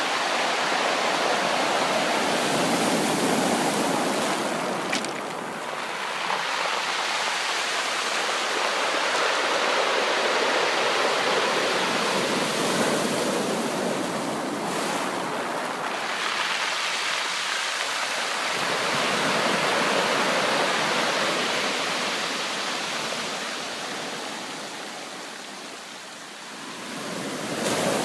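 Ocean surf: a continuous rush of waves breaking and washing in, swelling and easing slowly, with a lull about five seconds in and another near the end before the next wave builds.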